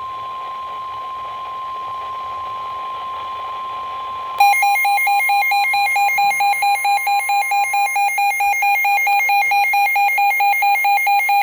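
Weather-alert warning tone: a steady, unbroken tone of about 1 kHz. About four seconds in, a weather radio receiver's own alarm cuts in much louder, a fast harsh beeping at about four beeps a second, with the steady tone fading beneath it.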